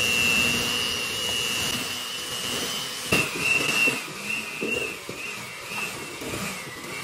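Electric hand mixer running, a steady high motor whine as its wire beaters churn flour into thick cookie dough in a stainless steel bowl. About three seconds in there is a knock, and from then on the whine wobbles in pitch as the beaters work through the stiff dough.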